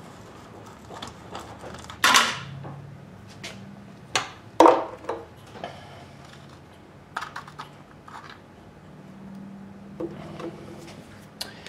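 Scattered metal clinks and knocks as a wrench and a removed engine cap are handled and set down, each with a short ring: the loudest about two seconds in and two more just after four seconds, with lighter taps later.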